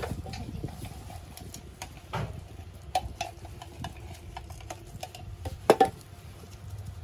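Small plastic scoop scraping and clicking in a clear plastic container of crushed topping, with scattered light clicks and one sharp clack about six seconds in.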